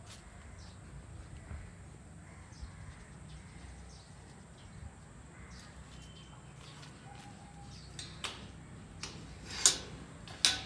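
Quiet outdoor ambience with faint bird calls. In the last three seconds about five sharp clicks break in, the loudest near the end.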